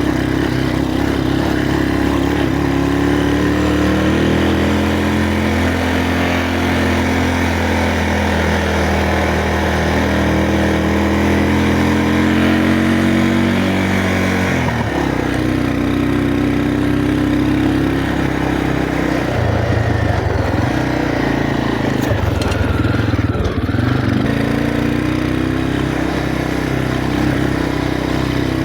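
Motorcycle engine running under load on a rough off-road track. The revs climb slowly for about ten seconds, drop sharply about halfway through, then rise and fall unevenly, over a steady rushing noise.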